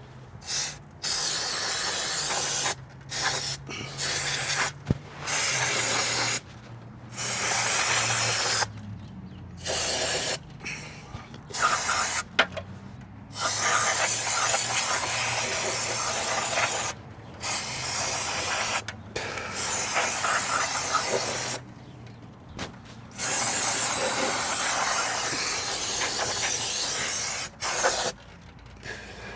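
Aerosol parts cleaner being sprayed onto scooter transmission parts in repeated hissing blasts, each one to three seconds long, with short pauses between them.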